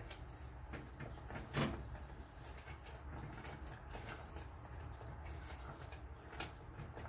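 Silicone spatula stirring thick brigadeiro in a metal saucepan as it cooks down toward piping consistency: faint scraping over a low steady rumble, with one louder knock about a second and a half in.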